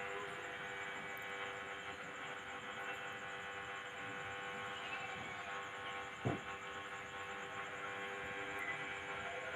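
A steady background hum made of several even tones, with one sharp click about six seconds in.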